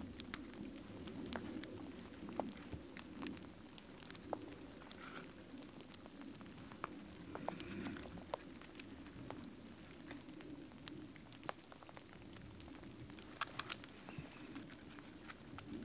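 Small fire of birch bark and split birch kindling crackling as it catches, with scattered sharp crackles. Sticks are shifted and laid on it by hand about halfway through.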